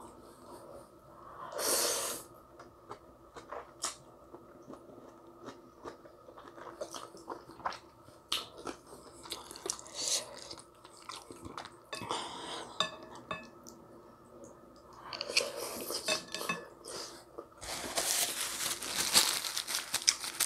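Close-up chewing of spicy ramen noodles, with a loud slurp about two seconds in and scattered clicks of wooden chopsticks against a glass bowl. Near the end a paper napkin rustles loudly against the face.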